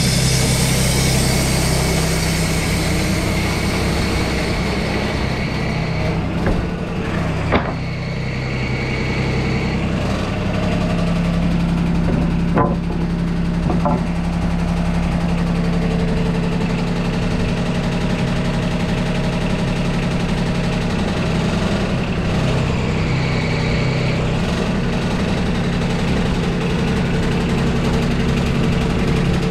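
Wood-Mizer LT35 hydraulic sawmill's engine running steadily, with a few sharp knocks in the middle as cedar boards are handled on the mill bed.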